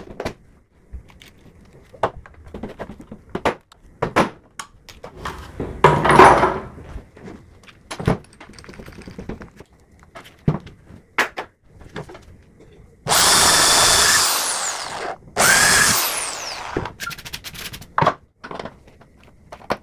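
Corded electric drill with a long bit run in two bursts, about two seconds and then about a second, with loose clicks and knocks of parts and tools handled on a wooden tabletop around them.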